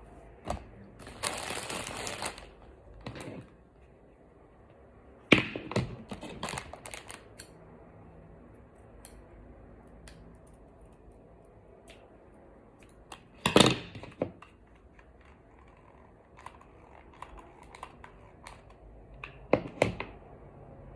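Handling noise at a craft table: scattered clicks and knocks of small hard objects being picked up and set down, with a brief crinkling rustle about a second in. The sharpest knocks come about five seconds in and again near fourteen seconds.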